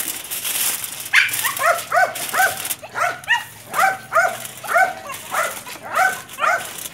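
A dog barking over and over from about a second in, about two to three barks a second, after a second of hissing noise.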